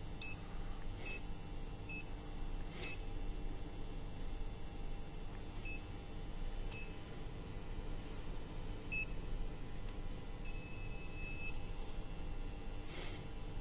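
HABOTEST HT122A pen multimeter's buzzer sounding during its three-phase rotation test: several short high beeps at uneven intervals, then one longer beep of about a second about three quarters of the way through, as the meter reads the phase sequence as anti-clockwise.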